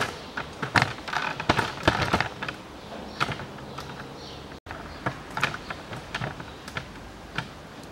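Irregular light clicks and knocks, with a denser scraping rustle about two seconds in.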